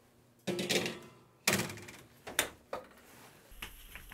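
A kitchen appliance door being opened and shut as a baking tray goes in: a brief scraping rush about half a second in, then three knocks, the first the loudest.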